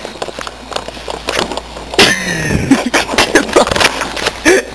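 Handling noise from a phone being jostled and carried: a run of irregular rustles, knocks and clicks, with one loud sudden sound about two seconds in.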